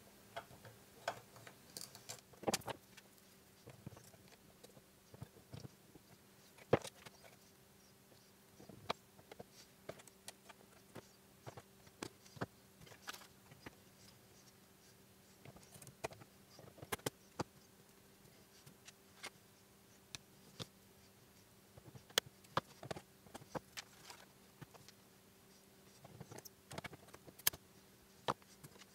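Scattered light clicks and clinks of small metal parts being picked from a parts tray and handled on a workbench, over a faint steady hum.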